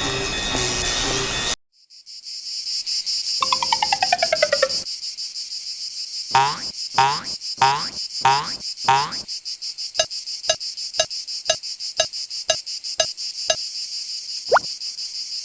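Music cuts off about one and a half seconds in, and a cartoon soundtrack of a steady, high, cricket-like chirring takes over. Over the chirring come a falling whistle-like glide, then a run of five falling chirps, then a regular tick about twice a second.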